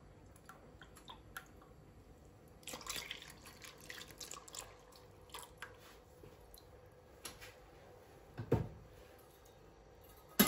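Coconut milk dripping from a steel measuring cup into a pot of milk: faint, scattered drips and small splashes, with a soft bump near the end.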